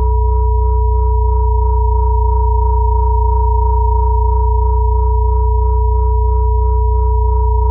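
Synthesized pure sine tones layered into a steady drone: a deep low hum, a middle tone near 432 Hz and a higher tone near 963 Hz. These are the crown chakra solfeggio and binaural-beat frequencies. They hold unchanged throughout.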